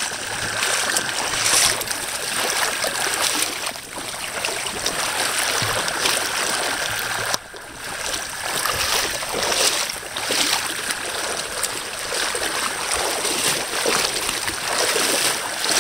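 Moving floodwater rushing and swashing, a steady noise that swells and fades, with a brief sudden drop about halfway through.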